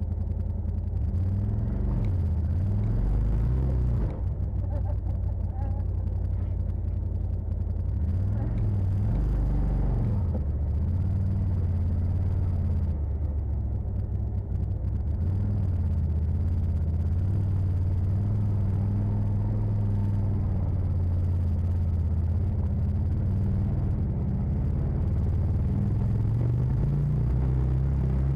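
Side-by-side UTV engine and drivetrain running at low trail speed, heard from inside the cab. The engine note rises and falls a couple of times with the throttle and climbs again near the end.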